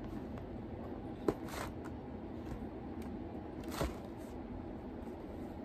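Cardboard shoebox being handled and tilted in the hands: a sharp tap about a second in, then brief rustles and scrapes of the box shifting, one more near the end.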